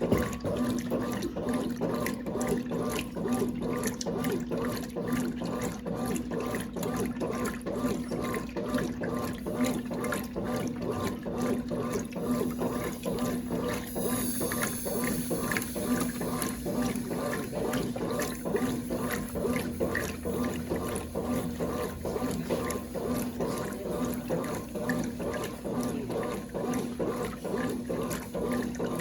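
Brastemp Clean 5 kg washing machine running with water inside, with a steady motor hum under continuous water sounds.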